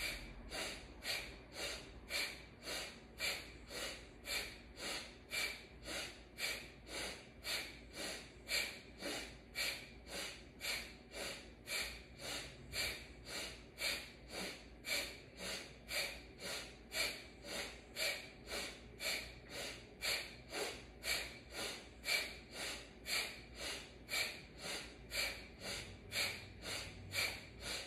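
A woman's forceful rhythmic breathing, about two sharp breaths a second, pumping the belly with the breath in time with alternating arm swings of a Kundalini yoga kriya.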